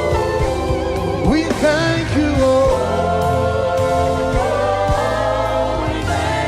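Live gospel worship music: a voice singing over held chords and a moving bass line.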